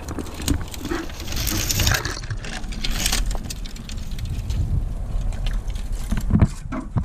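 Wind buffeting the microphone, a continuous low rumble, with scattered light clinks and rattles like climbing hardware jangling and a brief rush of hiss about one to two seconds in.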